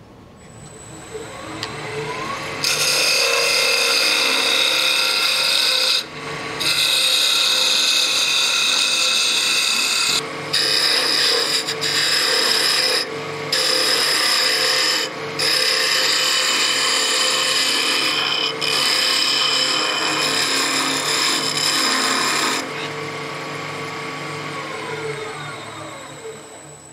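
Wood lathe coming up to speed, then a turning tool cutting into the spinning wooden spindle as the blade end is tapered down: a loud, steady hiss of shavings, broken by a few brief pauses as the tool is lifted. The cutting stops about four seconds before the end, leaving only the lathe running.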